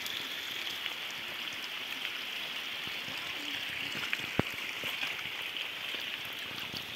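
Water pouring steadily from a half-pipe spout onto rocks and splashing into a shallow trickle below, an even splashing hiss. A single sharp click sounds about four and a half seconds in.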